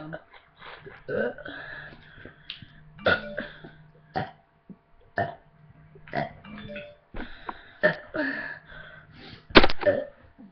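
A girl's deliberate burps, about ten in quick succession at roughly one a second, forced up by gulping drink from a 2-litre bottle for a burping contest.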